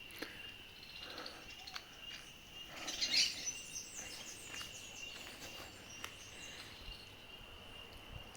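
Steady high insect trill with birds chirping over it; a burst of bird calls about three seconds in is the loudest part.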